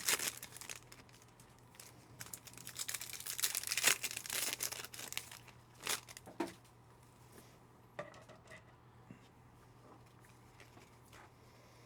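Trading-card pack wrapper crinkling and tearing as a pack is opened by hand. A few sharp clicks follow as the cards are handled.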